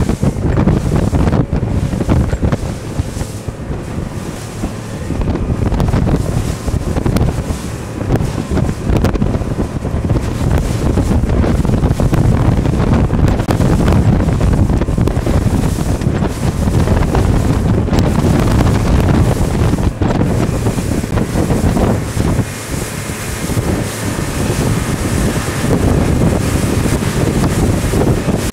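Wind buffeting the microphone on a rigid inflatable boat running at speed, with water rushing and slapping against the hull and the boat's motor running underneath.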